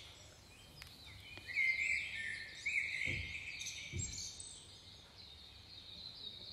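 Birds chirping and twittering in short repeated calls. A couple of faint clicks come about a second in, and two soft low thumps come around three and four seconds in.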